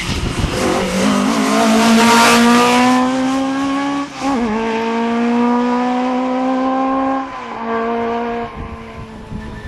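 Rally car engine accelerating hard up through the gears, its pitch climbing, with a gear change about four seconds in and another about seven seconds in. It is loudest early on as the car passes, then fades away near the end.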